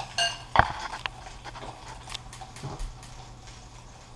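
A brief metallic clink that rings for a moment, then a sharp knock just after it, followed by a few light clicks and taps of kitchen utensils and cookware being handled, over a low steady hum.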